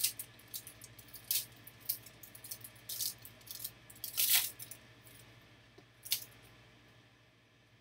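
Foil trading-card pack wrapper crinkling and tearing in short bursts, about five times, loudest about four seconds in, then dying away.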